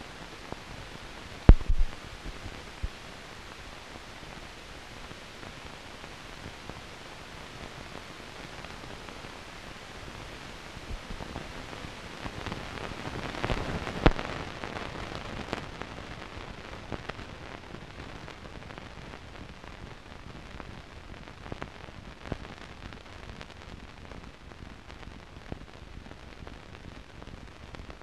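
Steady hiss with scattered crackles and pops, one loud pop about a second and a half in and another near the middle: the background noise of a silent newsreel's transfer, with no recorded sound.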